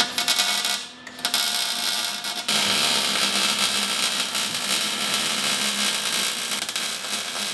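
Welding arc crackling and hissing steadily as a square-tube roof support is welded onto the bus body; a short, broken spell of crackle settles into a continuous run about two and a half seconds in.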